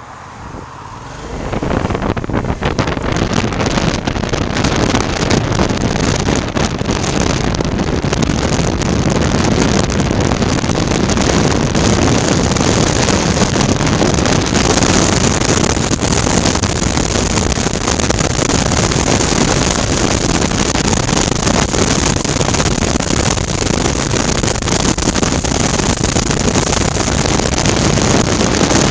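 Wind rushing over a helmet-mounted microphone on a moving 2019 Suzuki V-Strom 650, with the bike's 645 cc V-twin engine running underneath. The noise swells sharply over the first second or two as the bike pulls away and gathers speed, then holds loud and steady.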